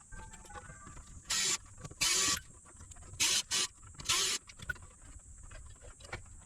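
Five short bursts of hissing, each a fraction of a second long, coming in quick succession over a faint steady background.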